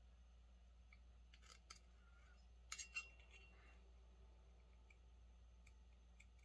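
Near silence: a low steady hum, with a few faint light clicks and taps about a third of the way in, as of small chainsaw engine parts being handled.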